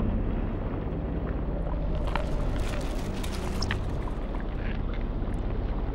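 Underwater ambience: a steady low rumble, with scattered crackles and clicks from about two seconds in.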